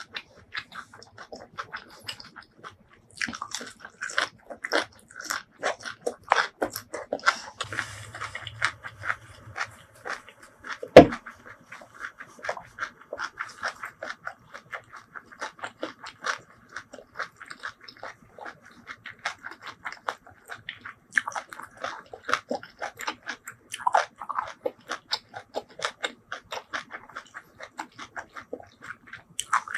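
Close-miked chewing of crunchy raw yardlong bean and rice-noodle salad: a dense, quick run of wet crunches and mouth clicks. One sharp crack about 11 seconds in is the loudest sound.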